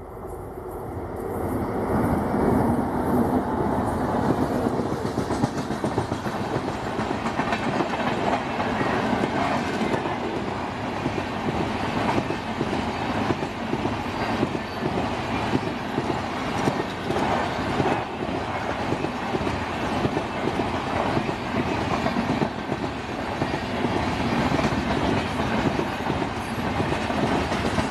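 A WAP7 electric locomotive hauling an express of LHB coaches passes by. The rumble builds over the first two seconds as the engine arrives, then settles into a steady, rhythmic clatter of coach wheels over the rail joints.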